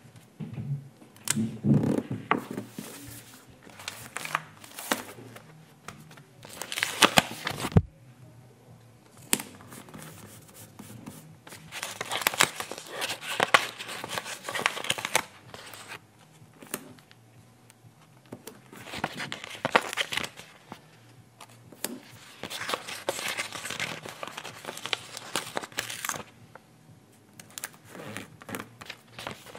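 Paper stickers being peeled off their backing sheets and pressed onto a sticker book page: repeated short, sticky tearing and paper crinkling, with scattered clicks and taps.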